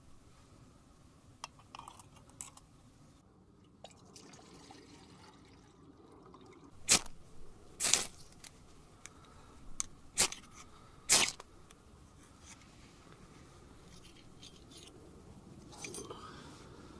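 Small camp stove being lit by hand: four sharp striking scrapes, one at a time, the second a little longer, and the burner catches alight. Soft handling clicks and rustles come before and after.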